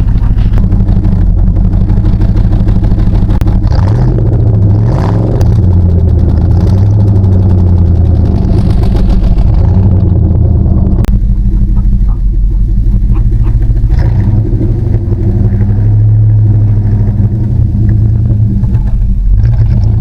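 Holden VT Commodore's V8 engine running steadily, its note rising and falling briefly about four to six seconds in. A sharp click sounds about eleven seconds in.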